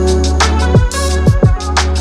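Background music: an electronic track with a deep bass and a kick drum about twice a second.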